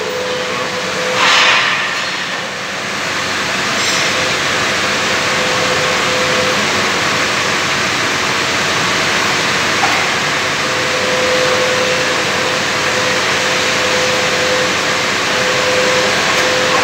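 A milling machine's MFPN66 cutter taking a full 3.5 mm deep cut through metal: a steady, loud hiss of cutting with a held tone underneath that fades out in the middle and returns. A brief louder surge about a second in.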